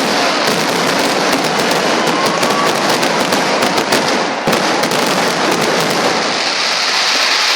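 Fireworks crackling densely, many small pops and bangs running together into a continuous loud crackle.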